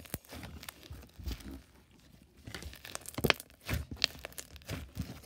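Hands squeezing and folding a thick, milky creamy slime, making irregular sticky crackles and small pops, loudest about three to four seconds in.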